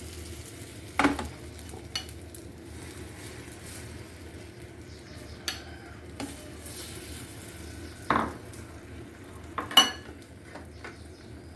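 Beaten egg sizzling on a hot buttered tawa over a low flame, with a steady low frying hiss. A spatula knocks and scrapes on the pan about six times, loudest about a second in and again near the end.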